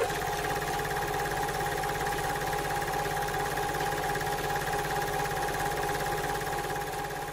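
Steady mechanical whirring with a fast, even clatter and a high whine, like a small motor running.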